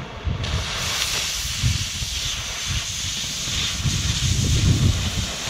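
Oxy-fuel cutting torch cutting steel flat bar: about half a second in the cutting oxygen comes on and the torch goes to a loud steady hiss that carries on through the cut, over an uneven low rumble.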